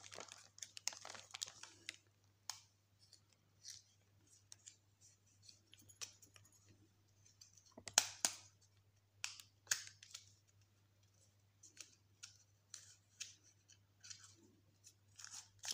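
Faint scattered clicks and rustles of cosmetics and their plastic packaging being handled, as an eyeliner is picked out and opened, with a sharper click about eight seconds in.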